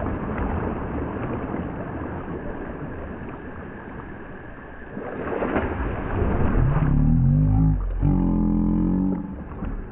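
Muffled sound of the camera under water after a jump into a well: a dense rushing, churning noise, then, about seven seconds in, a louder low, wavering tone lasting a few seconds.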